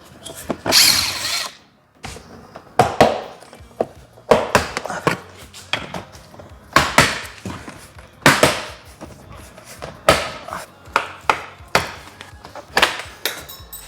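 Plastic clicks, knocks and a scrape from prying off and handling a car door mirror's cover and housing, irregular sharp hits every second or two.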